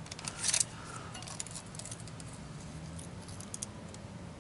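Steel tape measure being pulled out and handled: a short metallic rattle about half a second in, then scattered light clicks.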